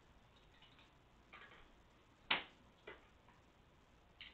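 Four soft, scattered taps and clicks from kittens playing with a wand toy, the sharpest about two seconds in.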